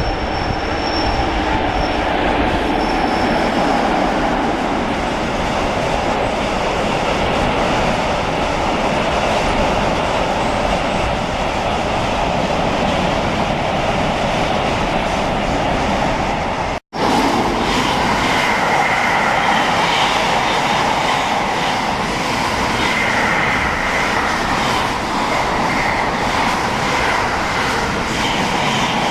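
Freight train passing at close range, its wagons rumbling and clattering over the rails, with thin high wheel squeals in the first few seconds. The sound drops out completely for an instant about seventeen seconds in, then carries on.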